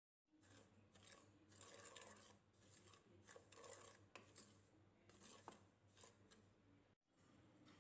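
Faint, irregular scraping and rubbing with a few light clicks, the sound of kitchen handling work. It breaks off for a moment about seven seconds in.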